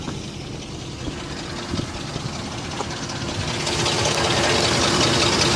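Ford 4.6 V8 in a Lincoln Aviator idling with a knocking, ticking sound, louder and hissier from about three and a half seconds in; the owner takes it for a bad exhaust leak, possibly an EGR fault.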